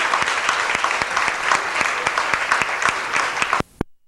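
Concert audience applauding, a dense steady clapping. It cuts off abruptly about three and a half seconds in, with a single click just after, as the recording ends.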